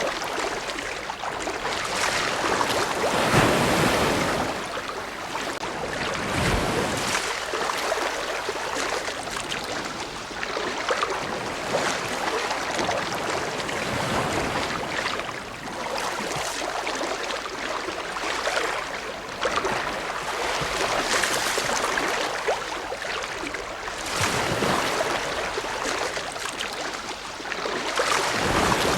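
Ocean waves breaking and washing on the shore, a steady rush of surf that swells as each wave comes in every few seconds.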